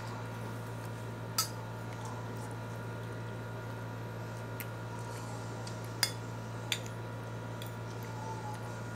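Steady low hum with three short, sharp clicks, about one and a half, six and nearly seven seconds in.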